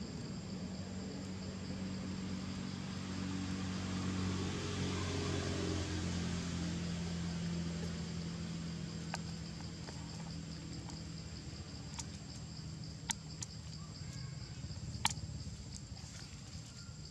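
Steady high insect drone with a low engine hum that swells and fades over the first half, like a vehicle passing at a distance. A few sharp clicks in the second half, the loudest near the end.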